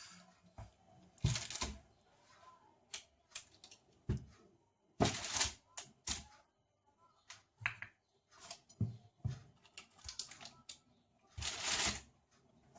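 Irregular taps, clicks and short scraping noises of a cookie stamp being pressed onto balls of peanut cookie dough.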